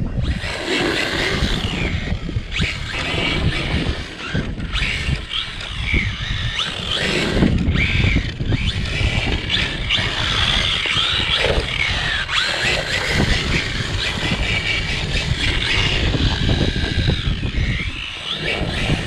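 Brushless electric motor of a 4WD RC drift car (Remo Hobby Smax chassis) whining up and down in pitch as the throttle is worked. Heavy wind buffets the microphone.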